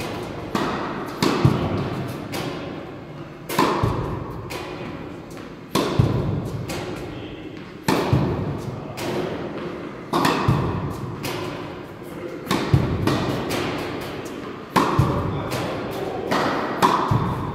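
Tennis racket striking balls about every two seconds, each crisp hit echoing in a large indoor court.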